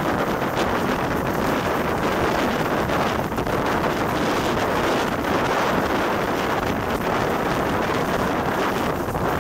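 Steady wind rushing over the microphone from the side of a moving steam-hauled train, with the train's running noise underneath.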